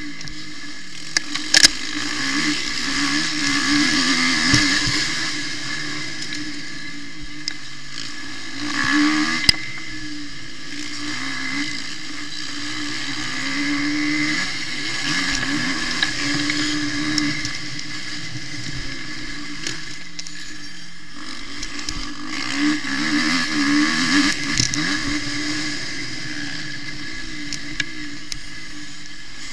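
Suzuki RM-Z250 four-stroke single-cylinder motocross bike engine being ridden hard, its pitch and level rising and falling with the throttle in several surges. A few sharp knocks cut through.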